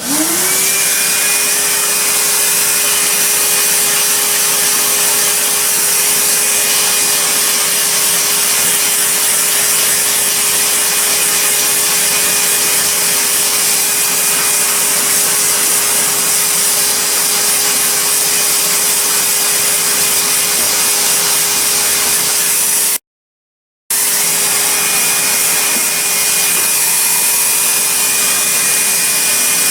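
Vacuum cleaner motor switched on, spinning up within half a second, then running steadily with a steady whine over a loud rush of air, used to suck fluff off the old Hoover. The sound cuts out for about a second near the end, then carries on.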